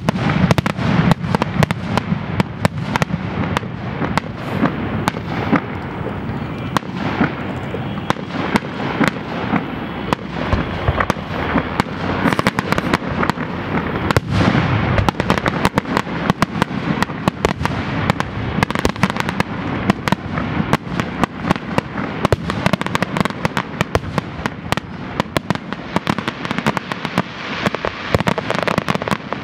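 Fireworks finale: a dense, unbroken barrage of aerial shell bursts and crackling, many bangs a second over a continuous rolling rumble.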